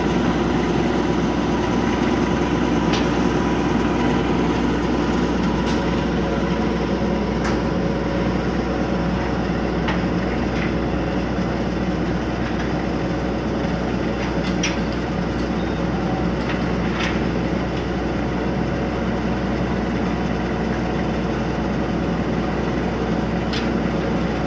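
An engine runs steadily throughout, with a few sharp metallic clicks scattered over it.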